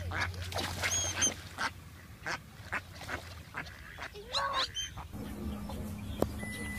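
Waterfowl calling: a string of short calls and high peeps from a Canada goose and mallard ducklings. About five seconds in, these give way to fainter chirps over a steady low hum.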